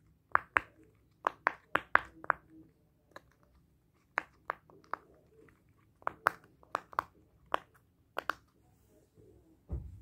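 Rainbow silicone pop-it fidget toy having its bubbles pressed: a string of short, sharp pops at an uneven pace, sometimes two or three in quick succession. A dull thump near the end.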